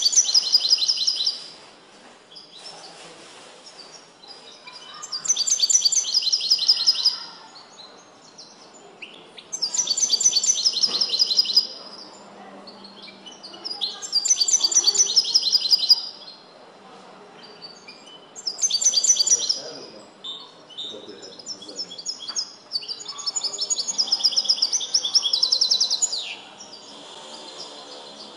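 Caged European goldfinch singing a song schooled in the limpio style. Six phrases of rapid, high, trilling notes come with pauses of two to three seconds between them, and the last phrase is the longest.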